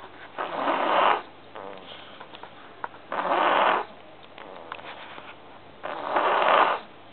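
Snoring: three loud snores, each under a second long, coming about every three seconds.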